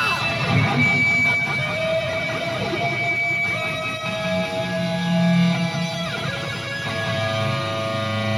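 Electric guitar playing sustained notes with several pitch slides, over a steady low bass.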